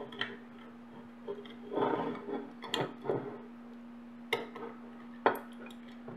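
Precision screwdriver bit clicking and clinking against screws and the metal baseplate of a hard drive as screws are worked loose, with handling of the drive casing: a few separate sharp clicks about a second apart.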